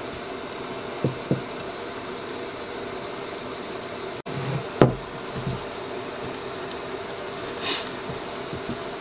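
Gloved hands rubbing paste wax into the wooden base of a leather strop, with light knocks of the wooden block against the bench: two about a second in and a louder one about halfway through. A steady hum runs underneath.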